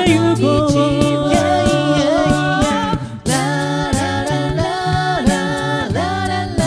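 A cappella group singing in close harmony: held chords over a low bass vocal line, with vocal percussion keeping a steady beat. The voices break off briefly about halfway through, then come back in.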